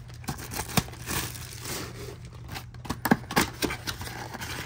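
Cardboard trading-card box being opened by hand: flaps pulled and folded back, with rustling, scraping and a few sharp clicks and snaps.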